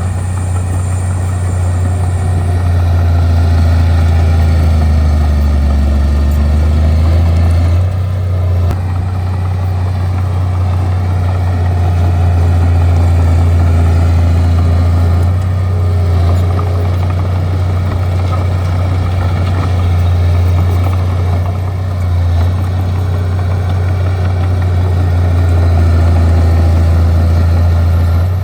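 Bulldozer's diesel engine running steadily under load, a heavy low drone that eases off briefly a few times as the machine works.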